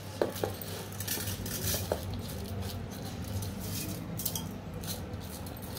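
Washed fenugreek seeds tipped from a steel bowl into a pressure cooker and pushed out by hand: a scattered patter of seeds falling into the pot, with a few light metal clinks in the first two seconds.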